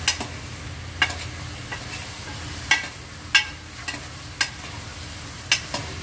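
A metal spoon clinks and scrapes against a metal pot as chicken pieces and potatoes are stirred, in irregular sharp knocks. A steady sizzle of the chicken frying in its own fat runs underneath.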